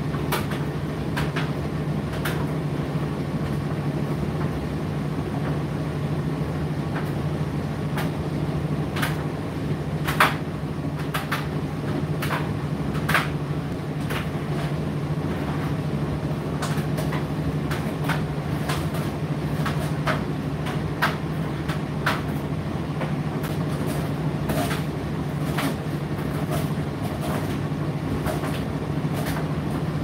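Indesit IDC8T3 condenser tumble dryer running mid-cycle: a steady hum from the motor and fans, with irregular clicks and knocks as the load tumbles in the drum. The loudest knock comes about ten seconds in.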